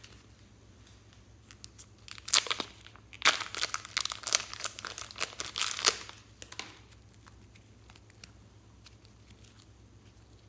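A burst of dense crinkling and crackling for about four seconds, starting about two seconds in, as hands handle slime-making materials.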